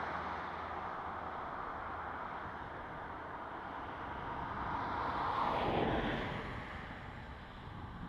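Steady outdoor noise with a vehicle passing: its road noise swells to a peak about five to six seconds in and then fades away.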